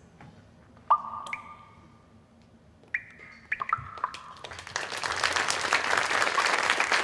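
A few sparse struck percussion notes, each ringing briefly, close out the music. Then, from about two-thirds of the way in, audience applause starts and builds.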